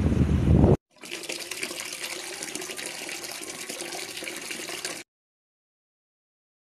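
A loud low rumble stops abruptly under a second in. After a brief gap, about four seconds of running water, an even hiss, cut off sharply.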